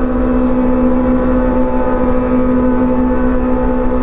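Kawasaki ZX-25R inline-four with an Arrow exhaust, running at steady high revs while cruising in fifth gear at about 73 km/h, heard from the rider's seat with a low road-and-wind rumble underneath.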